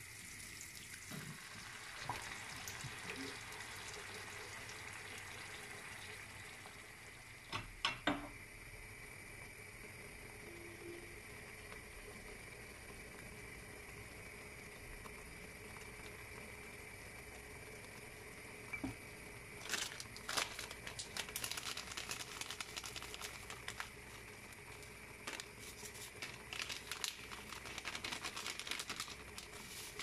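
Tomato sauce simmering in a frying pan, a steady low bubbling hiss. Two sharp knocks come about eight seconds in, and a run of clicks and taps fills the second half, as the spices are spooned and sprinkled in.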